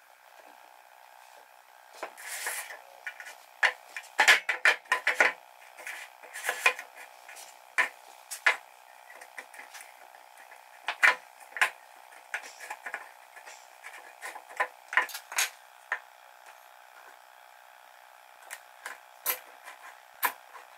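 Glued hornbeam strips of a cutting-board blank being pushed and knocked together and clamped: irregular wooden knocks and clatters with clicks from bar clamps being set and tightened, over a faint steady hum.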